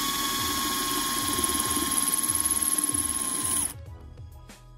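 Power drill running with a steady whine as a freshly sharpened twist bit bores through a thin stainless steel plate; the drill stops about three and a half seconds in, leaving background music with a beat.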